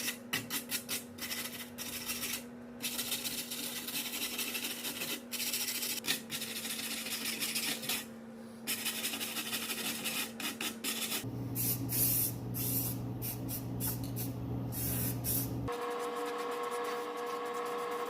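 Dust and rust being scrubbed off the rear brake dust shield, a fast run of rasping strokes. After about 11 seconds the strokes thin out and a steadier hum and hiss take over.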